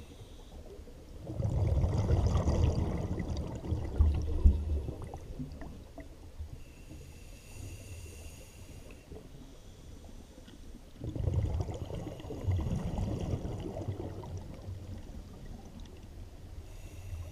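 Scuba diver's exhaled breath bubbling out of the regulator, heard underwater: two long bubbly bursts about ten seconds apart.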